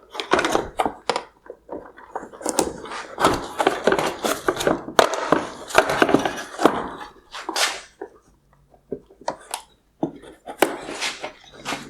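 Irregular clicking, scraping and knocking of hard plastic as a small flathead screwdriver pries at the locking clip of a wire harness connector on a plastic headlight housing, working the connector loose. There is a short lull a little after the middle.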